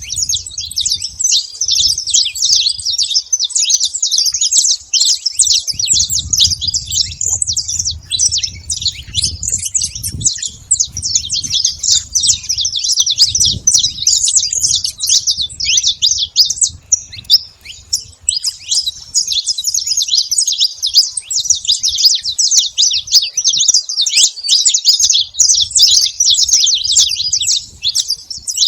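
A flock of saffron finches chirping and twittering all at once, many short calls overlapping in a dense, unbroken chatter.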